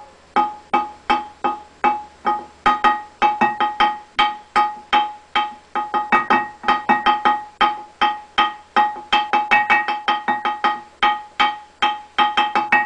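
Music of short struck or plucked pitched notes, each ringing briefly and dying away, in a steady run of about two to four notes a second.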